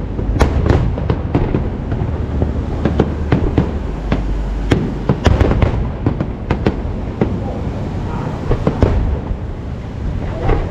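Aerial fireworks display: a rapid, irregular series of shell bursts and bangs, several a second in places, over a continuous low rumble of echoing explosions.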